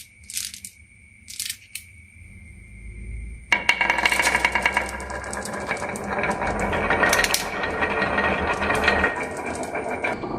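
Marbles on a wooden HABA marble run: a few scattered clicks at first, then about three and a half seconds in a dense, continuous clattering starts as many marbles roll and knock along the track at once.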